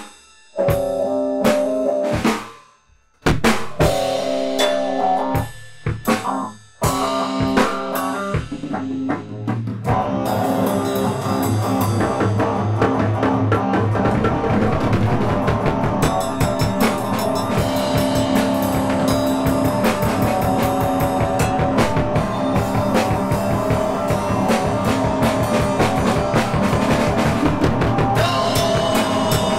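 Band music led by drum kit with guitar. It plays in sharp stop-start hits with short breaks over the first ten seconds or so, then settles into a steady full-band groove.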